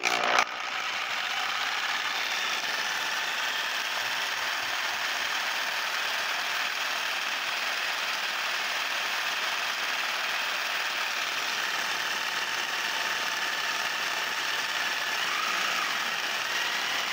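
Jigsaw running steadily as a homemade paint shaker, starting about half a second in. Its blade shakes a bar clamp holding a bottle of water-based primer back and forth to mix the separated paint.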